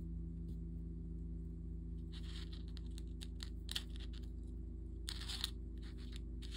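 Hands handling a beaded necklace on a cloth surface: a few short rustles, mostly about two and five seconds in, and scattered small clicks of glass seed beads and crystals, over a steady low hum.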